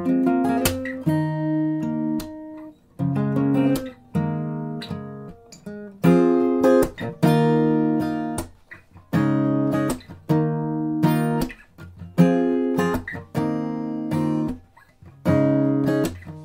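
Background music: guitar chords plucked about once a second, each left to ring and fade before the next.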